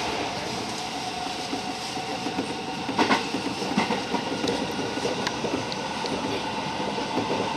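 205-series electric commuter train running on the rails, heard from inside the car: a steady rumble of wheels on track with clacks over rail joints, the loudest about three seconds in and a few lighter ones after it.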